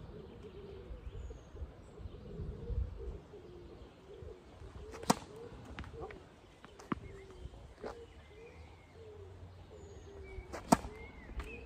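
Sharp cracks of a tennis racket hitting the ball on full kick serves, one about halfway through and another near the end, with a couple of lighter knocks between. Behind them a pigeon coos steadily and small birds chirp.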